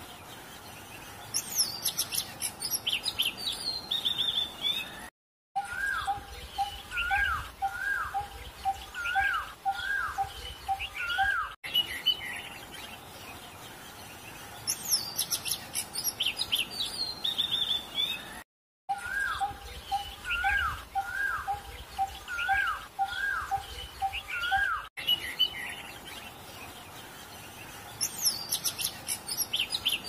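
Birds singing and chirping: bursts of high, quick descending whistles, and a short call repeated a little more than once a second. The same stretch of birdsong repeats about every 13 seconds, broken by two brief dropouts, which marks it as a looped birdsong track.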